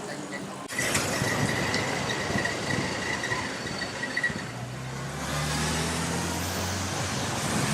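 City street traffic noise. From about halfway through, a motor vehicle engine runs close by with a low tone that rises slightly.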